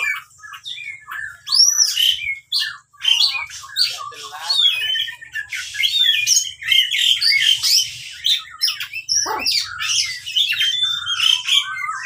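Caged oriental magpie-robin (kacer) singing a rapid, varied song of whistles, chirps and rising and falling notes, nearly without pause after a quieter first second.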